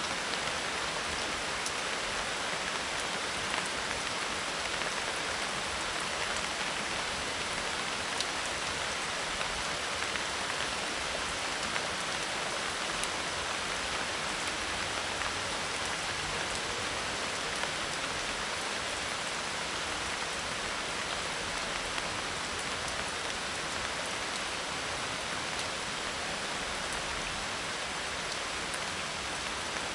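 Medium tropical rain falling steadily on a thatched roof of dried leaves, a constant even hiss with many small drop taps scattered through it.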